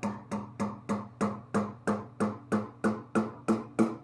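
Rubber mallet tapping steadily on the input shaft of a C5 Corvette torque tube, about three light taps a second. Each tap leaves a short ring from the tube. The shaft is being driven out of the tube.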